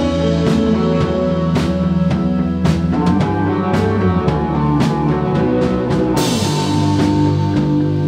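Rock band playing live: drum kit, a Rickenbacker electric guitar, a second electric guitar, bass guitar and keyboards. The drums keep a steady beat of a little under two hits a second, and a cymbal crash comes in about six seconds in.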